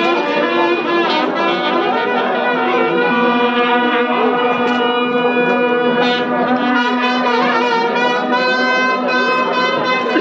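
A brass band playing loudly, several horns holding long notes over one another.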